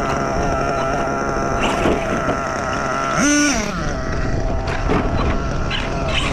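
Kyosho USA-1 Nitro's nitro glow engine running at a steady pitch, with one quick rev that rises and falls about three seconds in.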